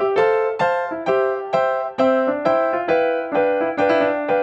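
Background music: a light melody of evenly paced, sharply struck notes, about two a second.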